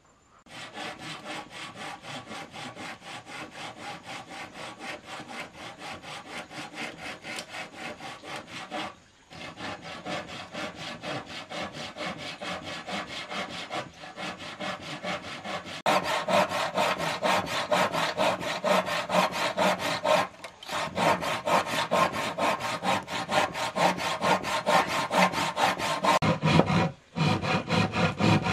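Hand saw cutting through a wooden plank in steady, rapid back-and-forth strokes. It breaks off briefly three times and grows louder about halfway through.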